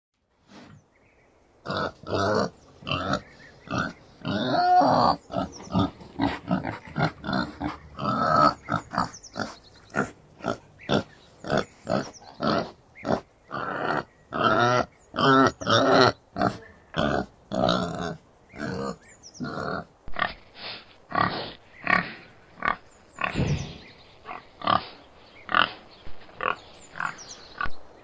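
Boar grunting: a long series of short, separate grunts, about one to two a second, starting about two seconds in.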